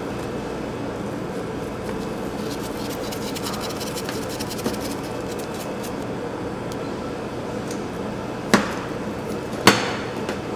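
Two sharp taps of a spoon against a glass mixing bowl, about a second apart, near the end, as ground garlic is knocked off onto shredded radish. Earlier there is a faint run of light ticks, over a steady low hum.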